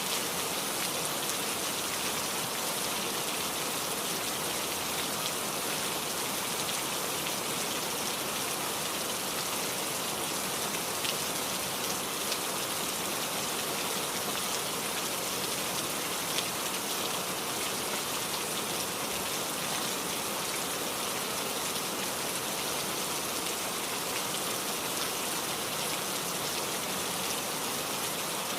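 Heavy rain falling steadily, a dense even hiss with scattered individual drop ticks.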